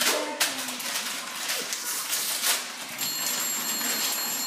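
A small packet rustling and crinkling in the hands, then about three seconds in a steady high electronic telephone ring starts.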